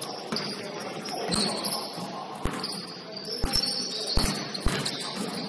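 A basketball bouncing on the court floor several times, mostly in the second half. Short high squeaks of sneakers on the court sound among the bounces.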